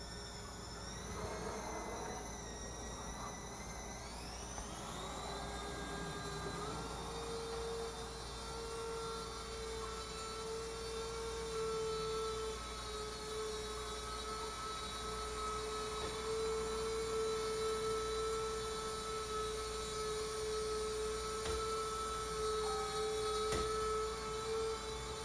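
A 20 kg servo winch, run through a 10 A ESC on a 3S LiPo, whines steadily as it reels in its line and hoists an RC truck. Its pitch climbs in a couple of steps over the first several seconds, then holds steady.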